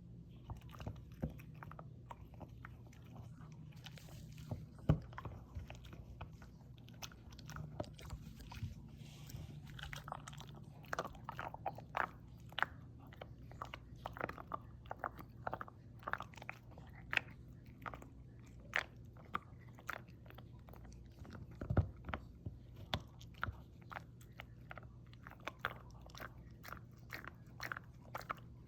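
A dog chewing a dental chew, biting and crunching it in irregular sharp cracks, sometimes several a second, over a faint steady low hum.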